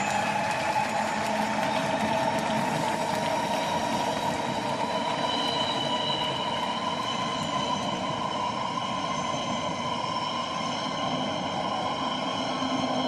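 Electric passenger train running past at speed: a steady rushing rumble with several high tones held over it that drift slowly in pitch.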